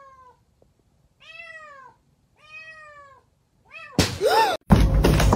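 A cat meowing: three drawn-out meows about a second apart, each falling in pitch, then a short one. Near the end comes a sudden thump with a louder cry.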